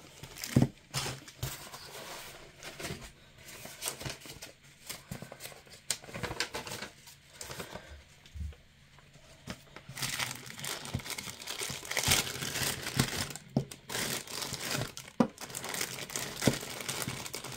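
Plastic zip-lock bags and crumpled brown packing paper crinkling as they are handled during unpacking, in irregular crackles that get busier in the second half.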